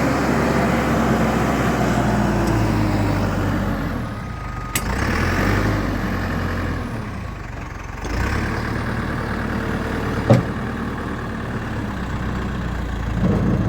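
Case 480 backhoe's engine running, its note dropping and picking up again twice as the machine is edged into position on a trailer. A sharp metallic knock about ten seconds in.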